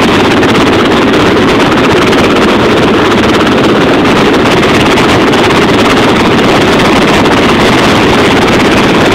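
Helicopter hovering over a ship's deck: a loud, steady roar of rotor and engine, with the downwash buffeting the microphone.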